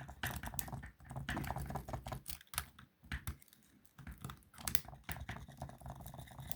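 Jiggler key being worked in a wafer lock: rapid, irregular small metallic clicks and rattles as the wafers are jiggled, pausing briefly about midway.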